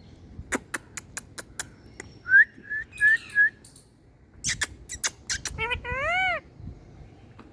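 Indian ringneck parakeet clicking and whistling: a run of sharp clicks, four short whistled notes, more clicks, then one long whistle that rises and falls.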